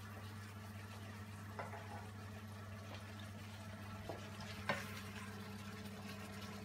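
Vegetable curry sizzling faintly in a frying pan as a metal spoon scoops it out, with a few scrapes and knocks of the spoon against the pan and bowl; the sharpest knock comes about three-quarters of the way through. A steady low hum runs underneath.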